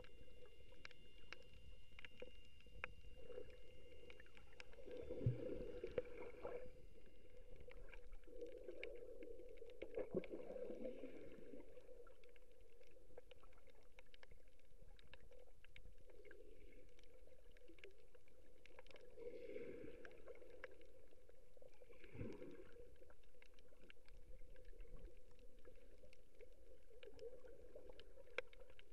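Muffled underwater ambience heard through a submerged camera: a low water surge that swells every few seconds, with scattered faint clicks throughout.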